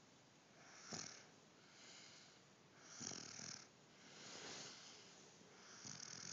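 A baby snoring faintly, with slow, regular breaths that swell and fade about every second and a half to two seconds.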